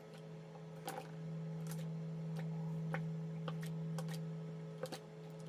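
A drinking glass is pressed rim-down through puff pastry onto a paper-lined wooden board to cut rounds, making a short tap or click each time, about seven at irregular intervals. A steady low hum sounds underneath.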